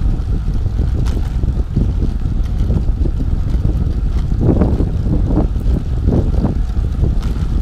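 Wind buffeting the camera microphone of a bicycle moving at about 13 mph: a steady low rumble, with stronger gusty flutters from about halfway through.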